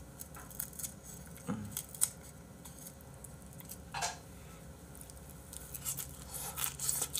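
Scattered light clicks of metal chopsticks against a bowl, with soft eating sounds from a person chewing crisp-edged fried egg.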